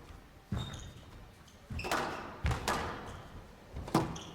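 Squash rally: the rubber ball being struck by rackets and hitting the court walls, several sharp hits that echo in the court, with short squeaks of court shoes on the wooden floor between them.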